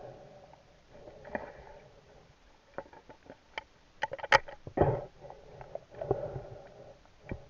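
Muffled underwater knocks and clicks of a speargun being handled as its rubber bands are stretched and hooked into the shaft to load it, with a sharp click about four seconds in and a dull thud just after.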